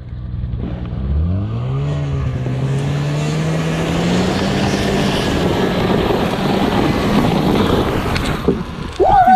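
Snowmobile engine accelerating while towing a sled, its pitch climbing from about a second in and rising slowly for several seconds, over a steady hiss of the sled sliding on snow. A person yells loudly near the end.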